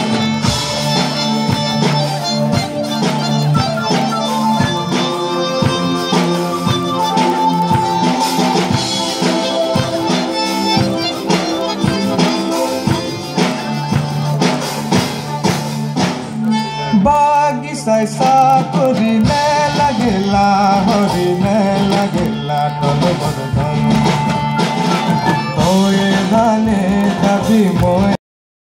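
Live ensemble music: tabla and drum kit keep a beat under a steady harmonium drone, with a wavering lead melody over it in the later part. The music stops abruptly just before the end.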